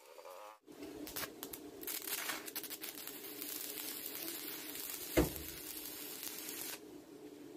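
Stick (arc) welding a steel pipe onto a steel plate: the electrode's arc crackles steadily, starting about a second in and stopping near the end, with one sharp pop about five seconds in.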